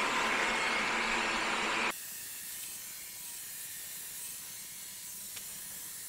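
Wyze robot vacuum running, a steady hissing whir from its suction fan and brushes, which drops sharply to a fainter hiss about two seconds in.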